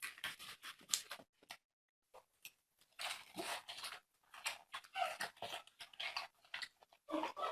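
A person chewing fatty pork belly with wet, irregular smacking and squelching mouth sounds.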